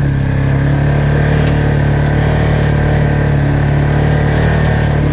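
ATV engine running at a steady, low, even speed as the quad crawls along a trail.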